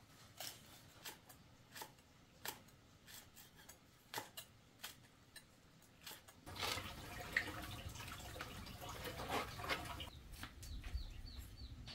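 Kitchen knife slicing green chili peppers on a thick wooden chopping block: sharp, separate knocks of the blade on the wood, about one and a half a second. Past the middle the background grows louder and the clicks come closer together, and near the end a quick run of high chirps sounds.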